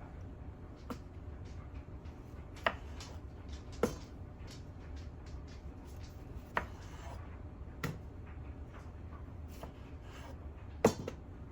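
A kitchen knife cutting food on a cutting board: a few slow, irregular knocks of the blade meeting the board, about five clear ones with fainter ticks between, over a low steady hum.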